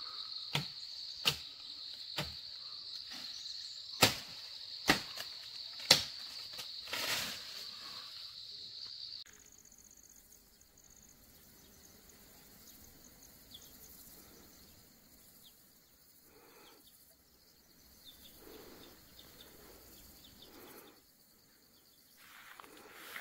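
Insects shrilling in a steady high drone, with six sharp knocks in the first six seconds from branches being chopped up in a tree. About nine seconds in the drone stops and a much quieter outdoor background follows, with a faint high insect buzz and scattered soft rustles.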